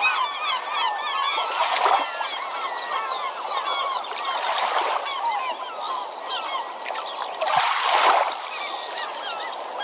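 A flock of birds calling continuously, many short overlapping calls, with three rushes of noise like waves washing in, about three seconds apart. A single low thump comes a little past seven and a half seconds.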